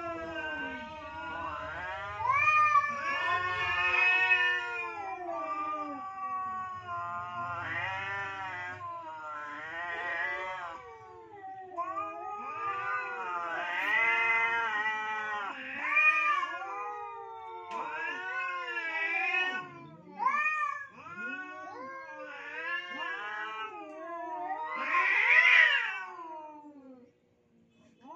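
Rival tomcats caterwauling: long, wavering yowls that rise and fall in pitch, almost without pause, at times two voices at once, with the loudest howl near the end. This is the threat yowling of males squaring off over a single female.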